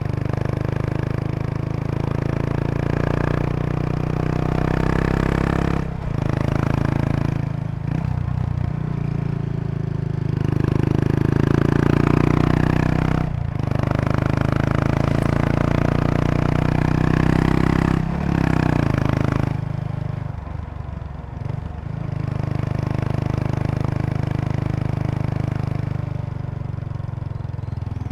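Kawasaki Estrella RS single-cylinder four-stroke engine with a Yamato aftermarket muffler, running under way at low speed. The exhaust drops out briefly several times, around 6, 8, 13 and 18 seconds in, as gears are changed, and pulls harder between about 10 and 19 seconds in before easing off.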